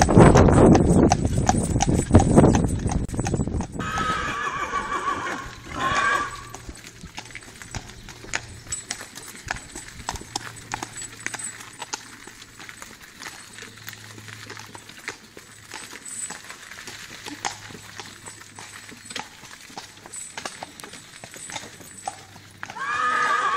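A Comtois draft mare's hooves clip-clopping on asphalt as she pulls a two-wheeled cart, heard from the cart seat as a run of uneven clicks. A louder rumbling lies under it for the first few seconds.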